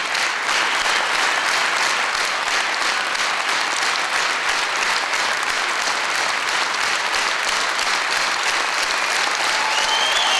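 Audience applauding steadily, dense clapping that holds an even level.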